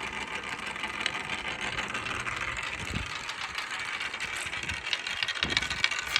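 A marble rolling steadily along a wooden marble-run ramp, with faint light clicks over the rolling noise.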